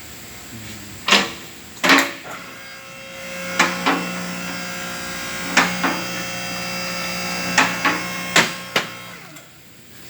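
Loud metallic knocks and clanks, about ten in all, several in pairs, each ringing briefly. A steady mechanical hum runs under them through most of the middle and stops near the end.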